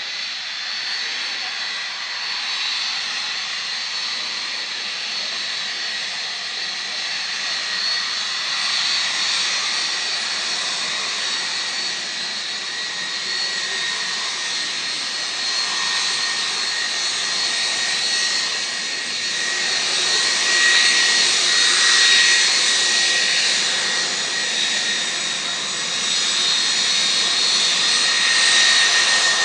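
Boeing 757 turbofan jet engines with a steady high whine over a rushing roar of noise, growing gradually louder.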